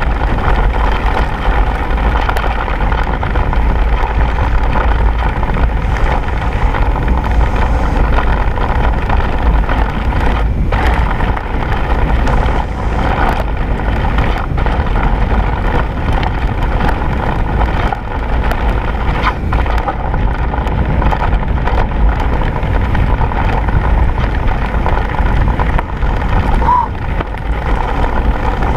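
Wind rushing over a rider-mounted action camera's microphone with the rattle and tyre noise of an enduro mountain bike descending a rocky dirt trail: a steady low rumble with a few sharp knocks from the bike hitting bumps.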